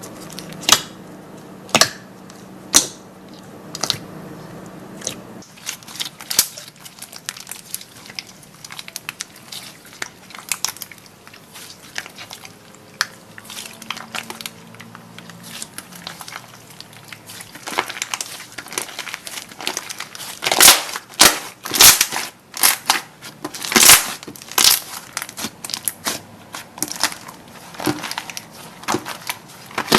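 Slime being squeezed and pressed by hand, giving sharp crackling pops that grow denser and louder in the last third.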